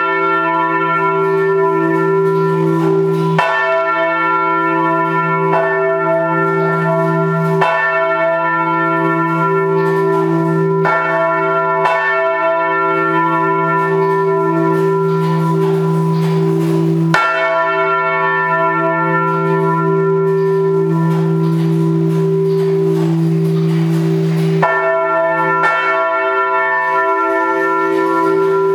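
Four bronze church bells cast by Rincker in 1953, tuned e', g', a' and c'', swinging together in full peal on straight yokes. Their strokes come every second or two and overlap into continuous loud ringing, heard up close inside the bell tower.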